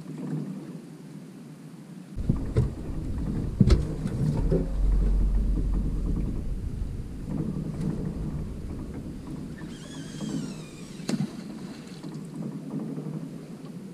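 Wind rumbling and buffeting on the microphone on an open boat, with water moving around the hull. A few sharp knocks come from someone moving about the boat, and a brief wavering high whine sounds late on.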